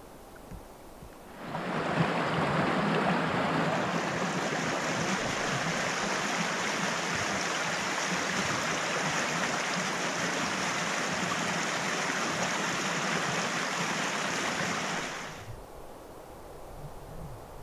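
Small creek rushing, a steady water noise that starts suddenly about a second and a half in and stops about two seconds before the end.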